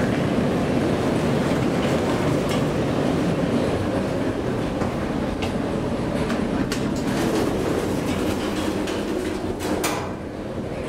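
1994 Thyssen inclined elevator cab running along its sloped track: a steady rumble with scattered clicks, and a sharp clunk just before the end.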